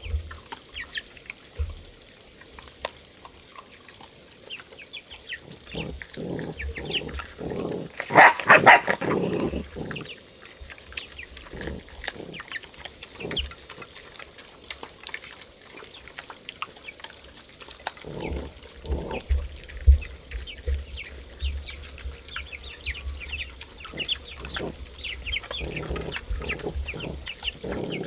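Farm animals calling, with a loud outburst about eight seconds in and quieter ones later, over many small ticking sounds.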